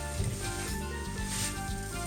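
Background music with steady held notes, over a hiss that swells twice.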